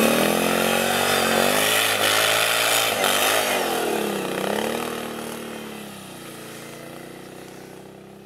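Can-Am Outlander ATV engine revving up and down under load as the tracked quad ploughs up through deep snow, then fading away over the last few seconds as it drives off over the hill.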